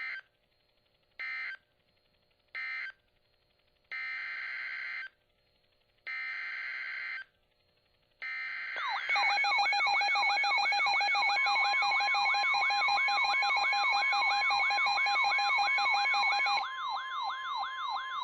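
NOAA Weather Radio SAME data bursts: three short buzzy end-of-message bursts close the first warning, then three longer header bursts announce the next one. About nine seconds in, several weather radio receivers go off together, their alarms sweeping rapidly up and down like sirens over steady alert tones, and the station's steady 1050 Hz warning alarm tone joins a couple of seconds later.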